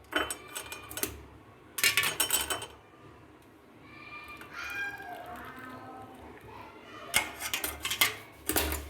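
Cups and kitchen utensils clinking and clattering as they are handled, in three bursts: one at the start, one about two seconds in, and a longer one near the end.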